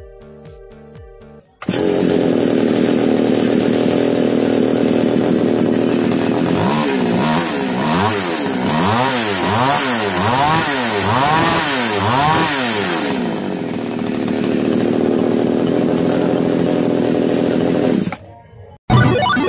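Two-stroke chainsaw, reassembled after a repair for a starting problem, running. It comes in suddenly about a second and a half in. From about 7 to 13 seconds it is revved up and down over and over, with the pitch rising and falling, then it settles to a steadier speed and cuts off shortly before the end. Background music plays briefly at the start and again at the very end.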